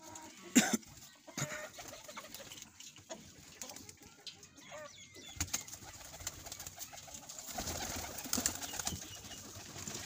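Domestic pigeons cooing, with a sharp knock about half a second in and light handling clicks and rustles; the sounds get busier between about seven and nine seconds in.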